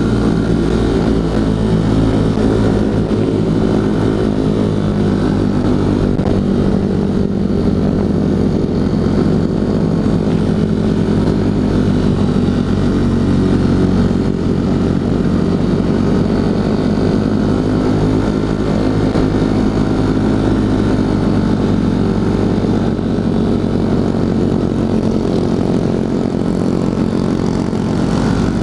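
Honda CRF150L's single-cylinder four-stroke engine running steadily under way, holding nearly even revs throughout.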